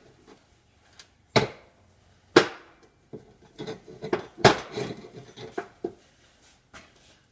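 A series of sharp knocks and clanks of metal being handled on a workbench. Two single loud knocks about a second apart come first, then a quicker run of knocks and rattles for a few seconds.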